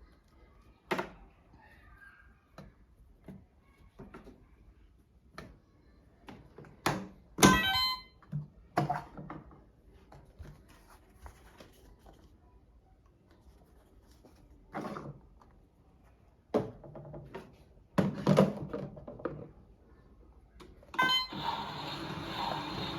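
Scattered knocks, thunks and clicks from a toy washing machine and its parts being handled, with louder clattering about seven and eighteen seconds in. Music starts near the end.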